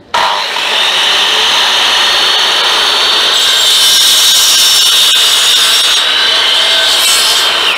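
Bosch miter saw starting abruptly and cutting through a bamboo pole: a loud, steady high whine with the rasp of the blade through the cane. Near the end the trigger is let go and the motor's whine starts to fall as the blade spins down.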